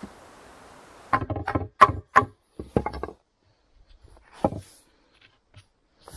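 Wooden knocking: a quick run of about eight sharp knocks over two seconds, then a single knock a moment later.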